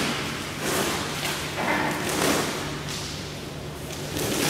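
Plastic wrapping film rustling and crinkling in irregular bursts as workers pull it off a new collision-repair frame machine, with light knocks of cardboard packaging being handled.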